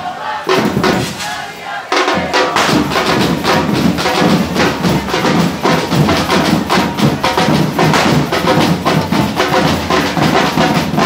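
Street drum group of snare drums and bass drums playing a fast, loud rhythm; after a short lull near the start, the full group is drumming again from about two seconds in.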